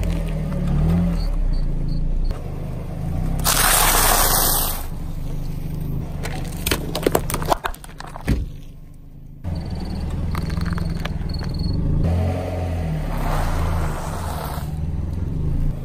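Car tyre rolling slowly over small objects and crushing them, with crunching, cracking and scraping over the low hum of the car's idling engine. The loudest moment is a rush of crushing noise about four seconds in, and a quick run of sharp cracks follows a few seconds later.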